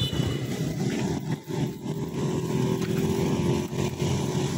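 Road traffic, with a vehicle engine running steadily.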